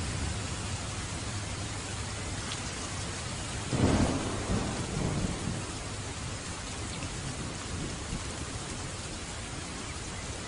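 Steady heavy rain hissing, with a clap of thunder about four seconds in that rumbles and fades over a couple of seconds.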